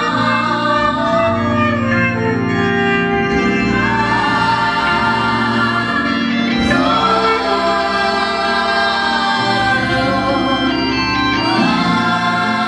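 Gospel music: a choir singing with electronic organ accompaniment, holding sustained chords.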